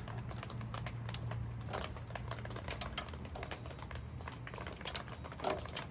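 Light, uneven clicks from a hand tool working the engine's oil drain bolt as it is tightened, over a low steady hum.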